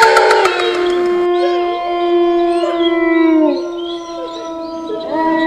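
Wolves howling: several long howls, held and overlapping, some sliding down in pitch, with a new howl starting near the end. A rattling noise fades out in the first second or so.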